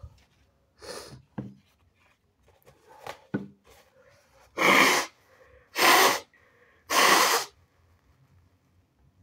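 A person with sinusitis letting out three loud, forceful blasts of air through the nose, each about half a second long and a second apart. A few shorter sniffs and catches of breath come before them.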